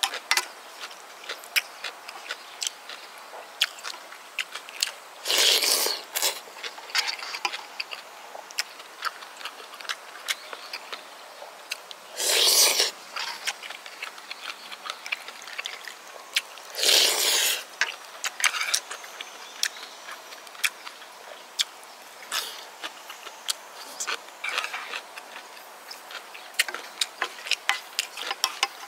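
Close-up eating sounds of gukbap: wet chewing and mouth clicks throughout, with three loud slurps of soup from a spoon, about five, twelve and seventeen seconds in.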